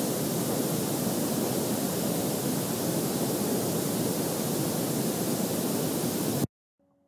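Steady, loud hiss of static-like noise with no pitch, which cuts off suddenly about six and a half seconds in, leaving a faint low hum.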